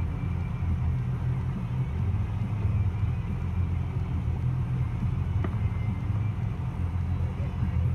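Wind buffeting the microphone: a steady low rumble that swells and drops unevenly, with a faint click about five and a half seconds in.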